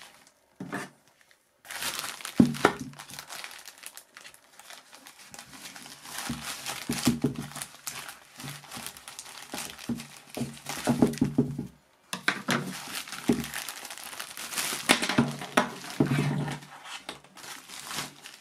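Plastic bubble mailer crinkling and tearing as it is handled and opened by hand, in two long spells of crackly rustling with a brief break about twelve seconds in.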